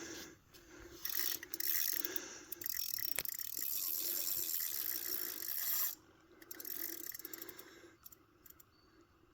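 Fishing reel being wound, its gears and ratchet whirring in a regular beat about twice a second. Over the first six seconds a loud rushing noise runs with it and cuts off suddenly.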